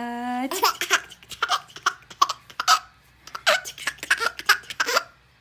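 A small child laughing in quick, choppy bursts after a held vocal note at the start, with a short pause about three seconds in.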